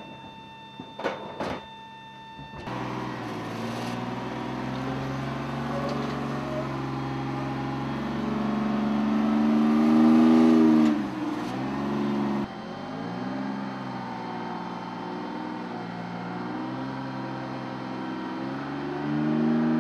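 A Light Armored Vehicle's diesel engine running under load as it drives on the C-17's cargo ramp, its pitch rising and falling with throttle and loudest about halfway through. A steady high whine and two sharp clicks come just before the engine starts to be heard.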